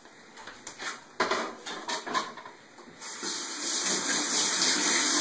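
A few light knocks and clatters, then about three seconds in a kitchen faucet is turned on and water runs steadily into the sink, getting louder.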